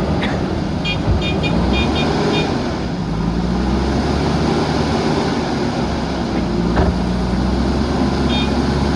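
JCB backhoe loader's diesel engine running under load, its pitch slowly rising and falling as it works. Groups of short high beeps sound about a second in and again near the end.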